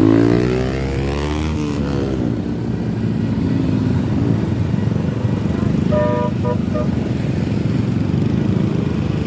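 A motor vehicle passes close, its engine sound dropping in pitch as it goes by, over a steady rumble of road traffic. About six seconds in, a vehicle horn gives three short toots.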